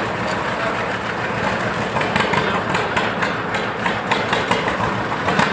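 A John Deere two-cylinder tractor engine is running. From about two seconds in, its exhaust gives sharp, evenly spaced pops at roughly four to five a second.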